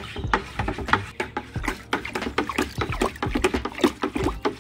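A stick vigorously stirring a bucket of muddy grey paint water just dosed with powdered dolomite lime: a fast, irregular run of sloshing splashes and clicks.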